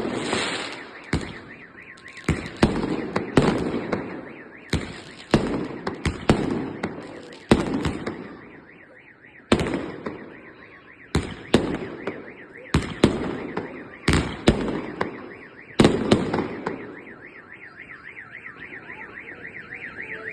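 Fireworks salute going off: a run of loud, sharp bangs at irregular intervals, each followed by a rumbling echo. A car alarm wails underneath with a fast rising-and-falling tone, heard on its own after the bangs stop about three-quarters of the way through.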